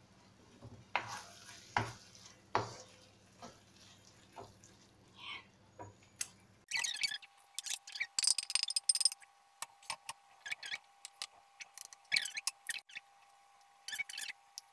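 Wooden spoon knocking and scraping in a wok of cooked beef mince, then scraping and clattering against the wok rim and a glass baking dish as the mince is spooned across. The scraping is louder and comes in short clusters in the second half.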